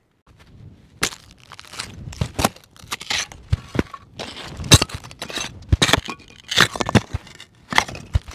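Footsteps crunching on stony desert ground, uneven crunches about one to two a second.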